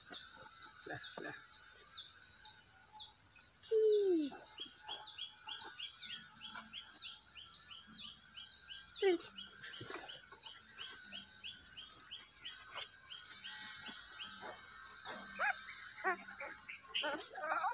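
A small bird calling over and over, short downward chirps at about three a second, with a second chirping bird joining a few seconds in. About 4 seconds in, and again near 9 seconds, comes a short low whine that falls in pitch.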